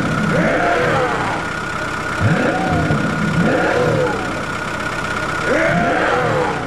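Truck engine revving up and dropping back, repeating about every three seconds, over a steady high-pitched hum.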